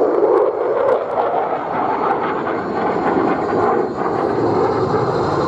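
Jet noise from an F-35 Lightning II's single F135 turbofan engine in flight: a loud, steady rushing noise.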